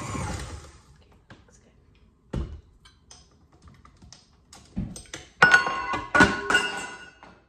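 A stand mixer's motor running and stopping within the first second, then scattered clicks and knocks as the beater is taken off. From about five seconds in, a utensil knocks and scrapes against the stainless steel mixing bowl several times, and the bowl rings.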